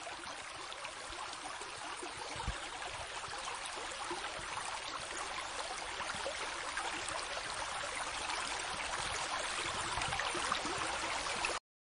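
Rushing river water over rocks: a steady rush that grows slowly louder and cuts off suddenly near the end.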